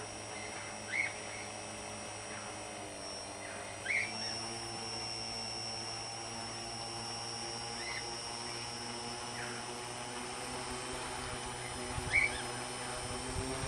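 A tricopter's three brushless motors and propellers run at low throttle on a test bench. They make a steady hum of several tones with a high whine above it, and the pitch dips and recovers about three seconds in. Short high chirps recur every few seconds.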